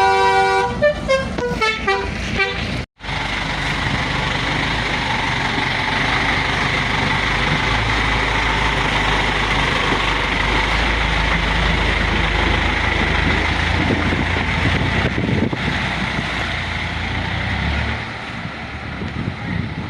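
Isuzu dump truck's telolet horn playing a quick run of changing musical notes, cut off abruptly about three seconds in. After that the truck's diesel engine runs hard and steadily with a loud, noisy sound, easing slightly near the end.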